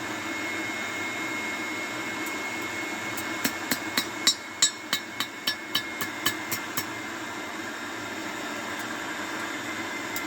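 A run of about a dozen hammer blows on steel, about four a second, while forging a square bar, with a steady mechanical hum underneath. The blows start about three seconds in and stop about seven seconds in.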